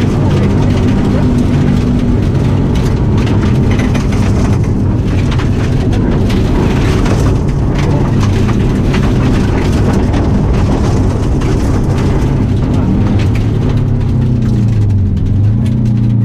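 Subaru WRX rally car's turbocharged flat-four engine running hard at stage speed, heard inside the stripped cabin, with gravel rattling and pinging against the underbody. The engine pitch rises and falls with the throttle, dipping and climbing again near the end.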